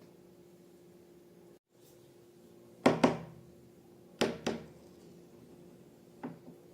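Three pairs of short, sharp knocks, each pair a fraction of a second apart, the first two pairs loud and the last faint, over a steady low hum.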